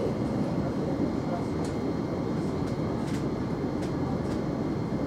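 Interior noise of a Thameslink Class 700 electric multiple unit running along the line: a steady rumble from the wheels and track, with a few faint clicks here and there.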